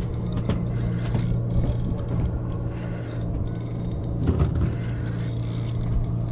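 Sportfishing boat's engine running with a steady low hum, with faint mechanical clicks and rattles over it.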